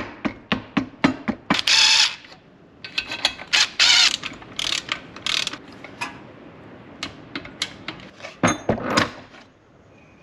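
Socket ratchet clicking in several quick runs as bolts are run down on a lawn mower engine's crankcase cover, with a few sharp metal clacks near the end.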